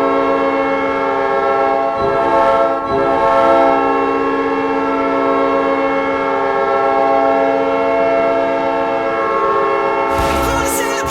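Hockey arena goal horn sounding: a loud, steady multi-note air-horn chord held for about ten seconds, celebrating a 'goal'. Near the end it gives way to a rock goal song.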